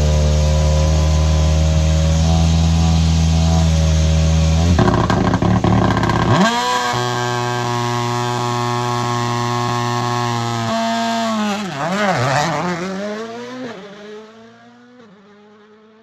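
Toyota GR Yaris Rally1 car's turbocharged four-cylinder engine idling, then revved up and held at a steady higher pitch for about four seconds on the start line. It then launches, the note rising and falling through the gears and fading as the car drives away.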